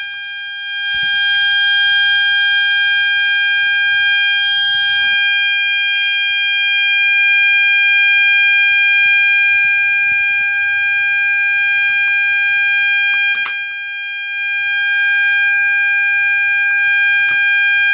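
Gentex GOS multi-tone sounder strobe sounding a loud, steady, unbroken tone, set off from a pull station during an alarm test.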